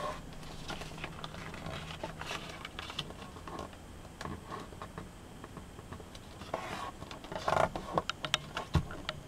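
A sheet of origami paper being folded and creased by hand: rustling and crinkling, with quick taps and clicks as the fingers press the folds flat. It gets busier and louder in the last few seconds.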